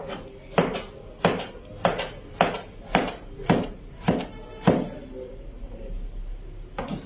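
Kitchen knife chopping carrot into dice on a cutting board: a run of about nine even chops, a little under two a second, that stops about two-thirds of the way through, with one more chop near the end.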